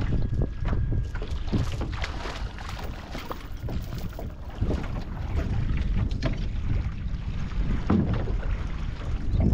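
Wind buffeting the microphone, with irregular splashes and knocks as someone wades in shallow water and hauls a small grapnel anchor and its chain in by hand.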